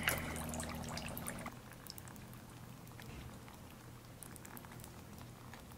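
Dry ice bubbling and fizzing in water in a stainless steel bowl, with soft scattered pops, dropping quieter after about a second and a half.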